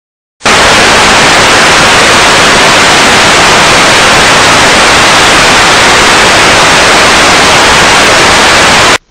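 Loud television static: the hiss of an untuned analog TV showing snow. It cuts in abruptly about half a second in, holds steady, and cuts off abruptly near the end.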